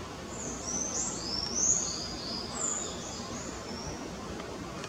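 Birds chirping: a quick run of short, high chirps for the first three and a half seconds or so, over steady outdoor background noise.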